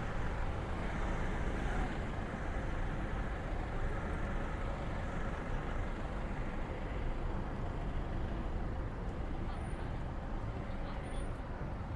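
Steady road traffic noise: cars and vans passing on a busy street, an even, continuous rumble with no single event standing out.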